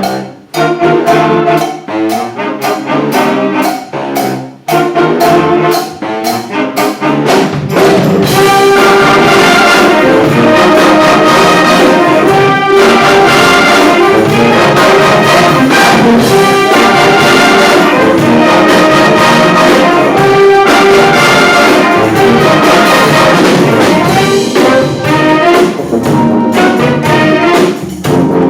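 Live brass band playing: short, separated chords with gaps between them, then from about seven seconds in the full band plays loud and continuously.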